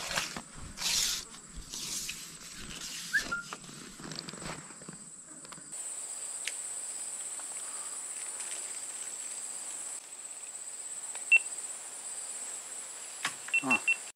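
A steady, high-pitched insect trill, strongest from about six to ten seconds in. In the first few seconds there is rustling of leaves as a long fishing pole is swung out under palm fronds, and near the end a few short high chirps.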